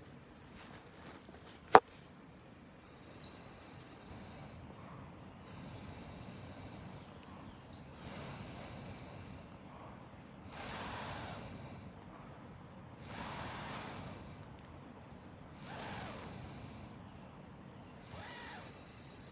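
Long breathy blows on a campfire of dew-damp wood, one about every two and a half seconds, growing stronger as they go on, to get the wet wood to catch. One sharp snap about two seconds in.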